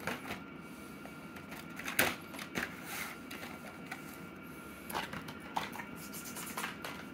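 Irregular clicks and crinkles of plastic blister-card toy car packaging being handled and set down, the sharpest click about two seconds in.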